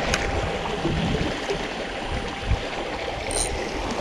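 Sea water washing against breakwater rocks: a steady rushing noise, with a few light clicks near the start and a dull knock about two and a half seconds in.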